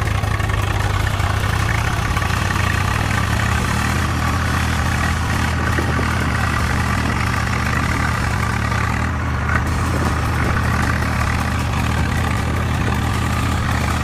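Tractor engine idling steadily, unchanging in pitch and level.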